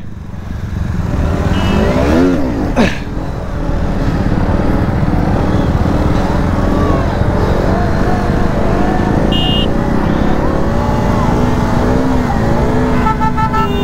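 KTM RC 125's single-cylinder engine revved hard, its pitch sweeping up and dropping back about three seconds in, then held at high revs with a wavering pitch as the throttle is worked through a wheelie. The rider complains that the 125 keeps losing power and can't hold the front up.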